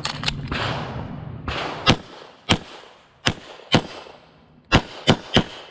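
Pistol shots fired during an IDPA stage, a string of about seven sharp cracks, several faint ones first and the last three in quick succession.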